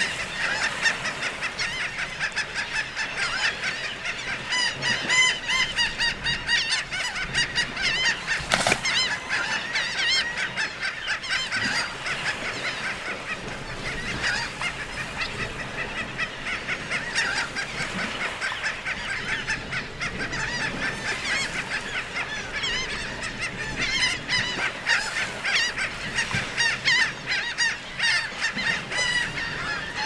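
A dense, continuous chorus of laughing gulls calling, many rising-and-falling calls overlapping without a break. There is one sharp knock about nine seconds in.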